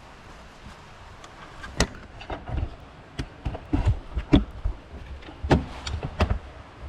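Metal hand tools clinking and knocking against engine parts, with irregular sharp knocks and low thuds starting about two seconds in.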